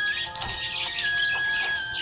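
Music: a rhyme tune played as held notes that step up and down, with short high chirps scattered over it.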